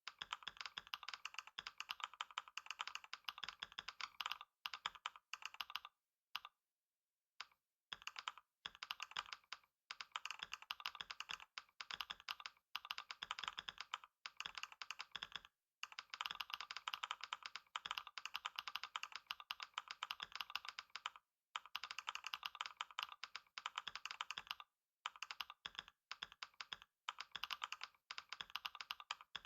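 Fast, continuous typing on a computer keyboard during a long typing test: a dense run of rapid key clicks, broken by brief pauses, the longest about six seconds in.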